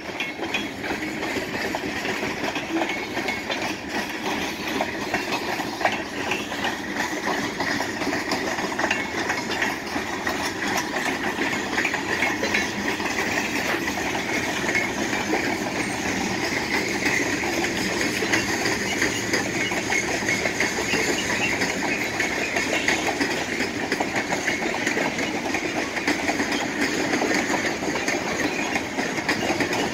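Freight train cars rolling past: steel wheels on the rails give a steady clatter thick with rapid clicks, with no break.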